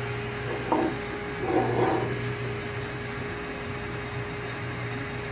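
A steady hum, like a fan or air conditioner running, with two faint, short handling sounds about one and two seconds in as an apex seal is fitted against a rotor's groove.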